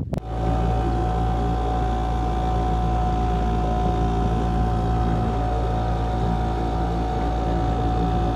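Boat motor running steadily at constant speed as the boat moves through the water.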